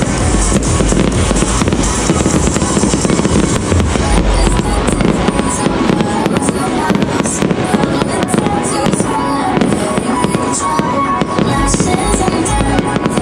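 Fireworks bursting and popping densely over loud music, with sharper high crackling in the second half.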